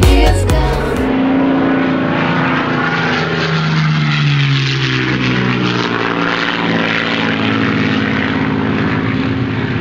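Music ends about a second in. Then comes a steady engine drone with a rushing hiss, its pitch sliding slowly down and back up.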